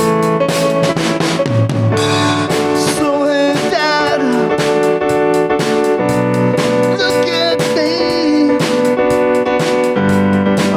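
Music: a song with held keyboard chords over a steady drum beat, with a lead melody bending in pitch above.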